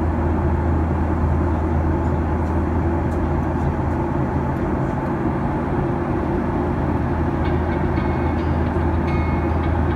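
Steady cabin drone of a Boeing 737-800 in flight, its CFM56 turbofan engines and airflow heard from a seat beside the wing, with a strong low hum underneath.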